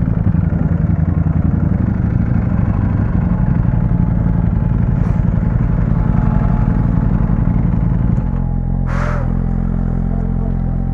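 Ducati Panigale V4's V4 engine idling with a lumpy, pulsing beat. About eight seconds in, the idle smooths out and drops a little in level.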